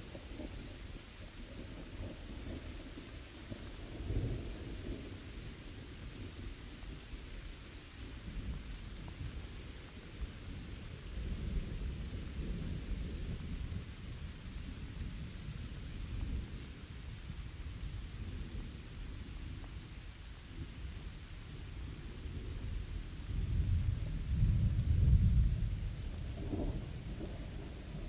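Thunderstorm: steady rain with low, rolling thunder that swells several times. The loudest and longest rumble comes near the end.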